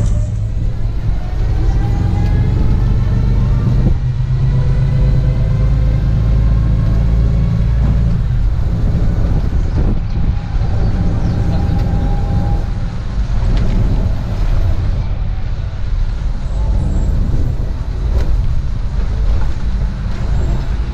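Open-air tour trolley's engine running with a heavy low rumble as it drives, its pitch rising in the first couple of seconds as it picks up speed, with road noise.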